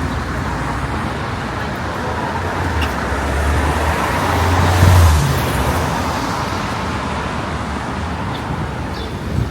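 City street traffic, with one vehicle passing close: its low engine rumble builds and is loudest about five seconds in, then fades back into the steady traffic noise.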